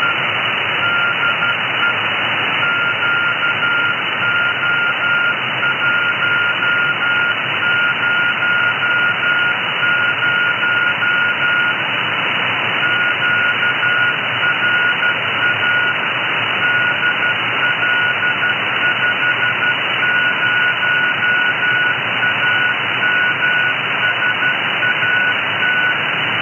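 Es'hail 2 (QO-100) narrowband beacon's Morse code ident heard through an SDR receiver: a single high tone keyed on and off at about 12 words per minute, almost buried in loud, steady receiver hiss. The heavy noise marks a weak signal, which the owner puts down to a 60 cm dish with trees in the way.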